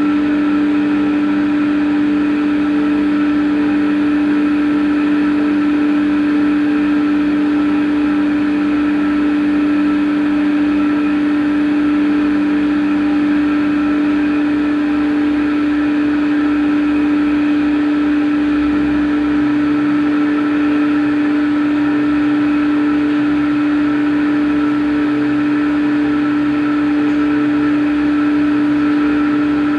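CNC machine running steadily with a constant, unchanging whine over a faint hum.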